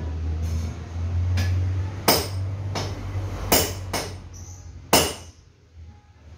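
Tools tapping and clinking on metal parts: about eight sharp, irregular strikes over five seconds, over a low steady hum.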